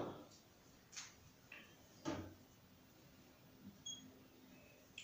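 Near silence broken by a few faint taps of a marker on a whiteboard as it writes, with one short faint squeak near the end.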